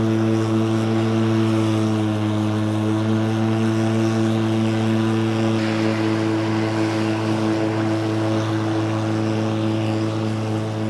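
EGO 56-volt cordless electric lawn mower running while cutting grass, its motor and spinning blade giving a steady hum with an even-pitched whine at constant speed. The deck is fitted for side discharge.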